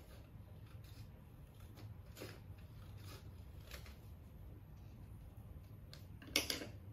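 Scissors snipping through a strip of paper: a few short, faint cuts about a second apart. Near the end comes a louder clatter as the scissors are put down on the table.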